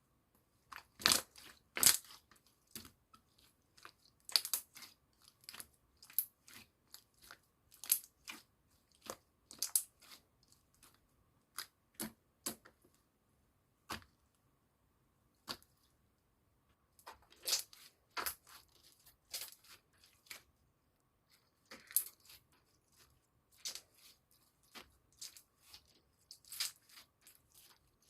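Milky white slime being played with by hand, giving short clicking pops that come in irregular clusters with brief pauses between them.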